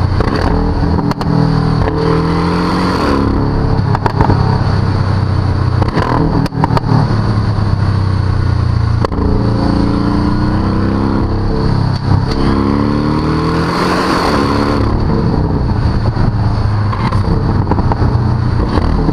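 Porsche 718 Cayman GTS's turbocharged 2.5-litre flat-four engine heard at the sports exhaust tailpipes under hard acceleration. The engine note climbs in rising sweeps, again and again, as it is run up through the gears to about 7,000 rpm. Short sharp cracks come at the gear changes.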